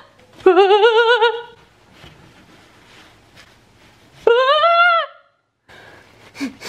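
A woman's high-pitched squeals of disgust: a wavering squeal about a second long, then a shorter rising squeal about four seconds in, while she squashes a spider with a tissue.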